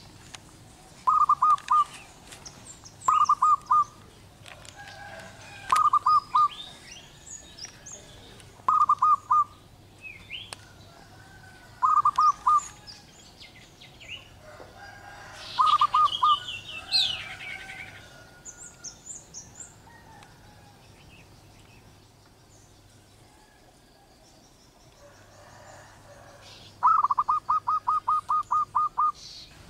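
Zebra dove cooing: short bursts of rapid staccato notes roughly every three seconds, then a longer run of about ten notes near the end. Other small birds chirp at higher pitches in between.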